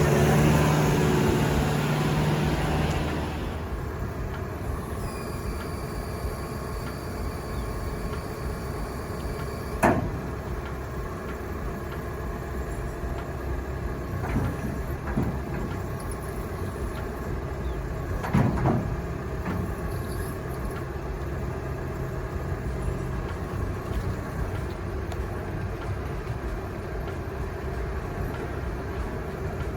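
Steady low running hum of a truck, louder for the first three seconds and then settling. A sharp knock comes about ten seconds in, with a few softer knocks later.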